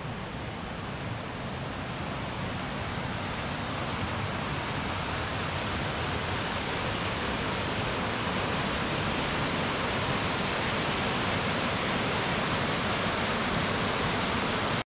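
Rushing water from a mountain stream or waterfall, a steady even roar that grows gradually louder over the first several seconds and then holds.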